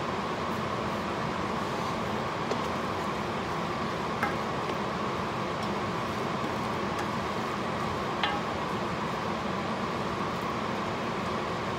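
Steady rushing kitchen noise, with a few light knocks of a wooden spoon against a large stainless steel stockpot as a meat sauce is stirred.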